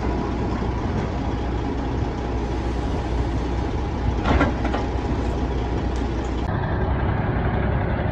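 Heavy truck and log-loader engines running steadily while pine logs are loaded onto a log trailer, with a short loud burst of noise about four seconds in. The sound changes abruptly about six and a half seconds in to a semi truck idling.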